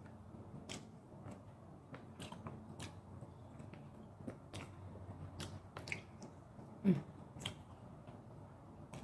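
Close-up chewing and biting as a person gnaws pieces of beef steak off the bone, with short wet mouth clicks and smacks scattered throughout and one louder one about seven seconds in.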